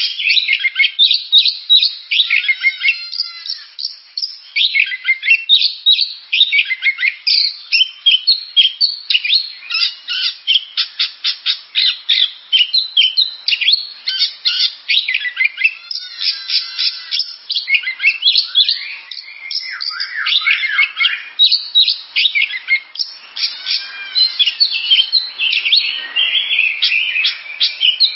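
Oriental magpie-robin (kacer) singing a long, rapid, unbroken song of sharp chirps mixed with short whistled slurs.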